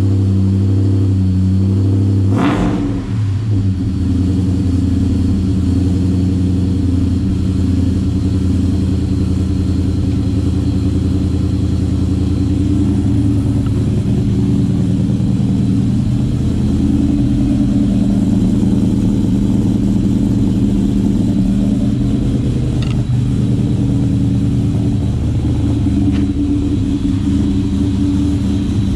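Ford Mustang Mach 1's V8 running steadily through Magnaflow mufflers, with one sharp click about two and a half seconds in.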